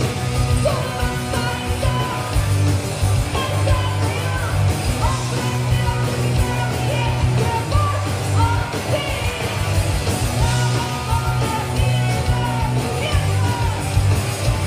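Punk rock song with yelled vocals over driving drums, bass and guitar.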